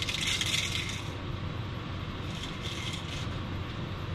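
Fishing line being pulled in hand over hand from a wall-mounted rattle reel on an ice fishing hole: scratchy rustling with light rattling and clicks. It comes in two spells, the loudest in the first second and another about two and a half seconds in.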